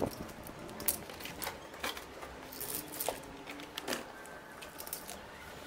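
Scattered light clicks, knocks and rattles of things being handled, while the scooter's engine is not running.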